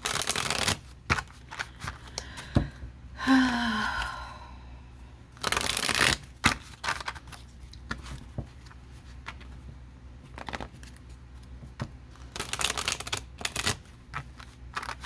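Tarot cards being shuffled by hand: three bursts of riffling, one at the start, one about halfway and one near the end, with scattered taps and clicks of cards between them.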